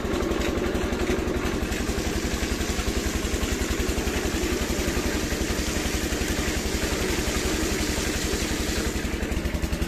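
Engine driving a sugarcane crusher, running with a steady rapid beat. Over it, a splashing hiss from about two seconds in until near the end: cane juice pouring from a tin through a sack filter into a large metal pan.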